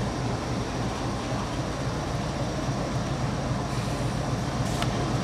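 GEU-40 diesel-electric locomotive's engine running steadily with a low, even drone, with a short click near the end.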